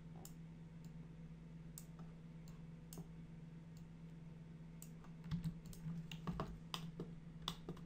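Scattered, irregular clicks of a computer mouse and keyboard, over a steady low hum.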